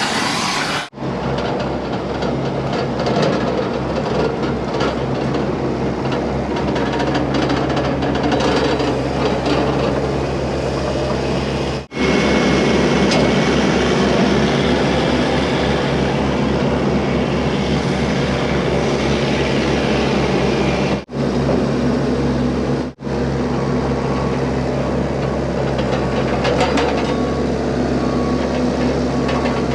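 Vehicle engine running steadily with a low hum and a fast low pulse. It breaks off abruptly and resumes several times, as separate clips are cut together.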